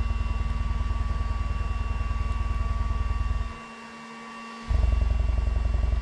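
Bazooka RXT114 triangular subwoofer driven with a subsonic test tone of about 10 Hz, its cone making slow, long strokes heard as a fast, even low chop. About halfway through the tone cuts out for about a second, then comes back a little louder as the step up to about 11 Hz.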